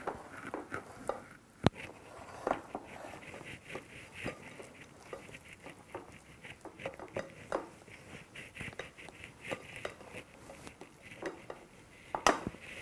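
Spoon scraping and tapping against a glass Pyrex dish as mashed orange-flesh sweet potato is spread in it: a steady run of small clicks and soft scrapes, with one sharper click about two seconds in and a few louder knocks near the end.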